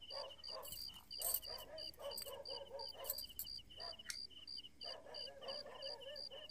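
Background animal sounds: faint wavering calls that come and go over a steady, evenly repeating high chirp about three times a second.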